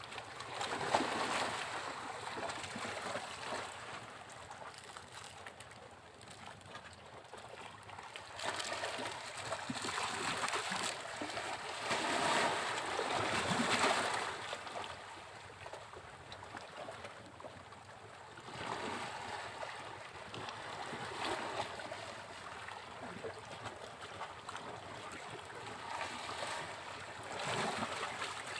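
Ocean waves breaking and washing up a beach in repeated swells that rise and fade. The biggest surge comes about halfway through, with smaller ones near the start and in the last third.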